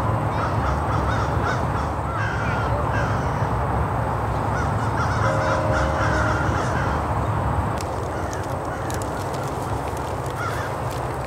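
Birds cawing over a steady low rumble, with a run of sharp clicks in the last few seconds.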